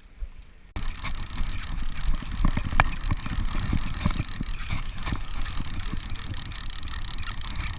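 Noise aboard a fishing boat at sea: a low rumble of wind on the microphone with a fast run of fine clicks. It starts abruptly under a second in and then stays at a steady level.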